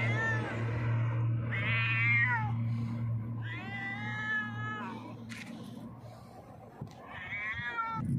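Stray cat meowing loudly, four drawn-out meows a couple of seconds apart: a hungry cat begging for food. A steady low hum runs underneath and fades out about six seconds in.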